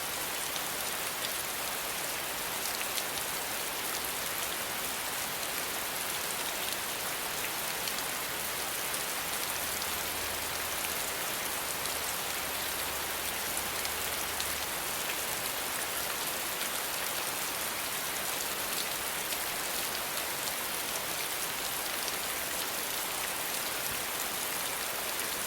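Steady rainfall, an even patter of many drops landing on a surface with fine individual drop ticks, at a constant intensity.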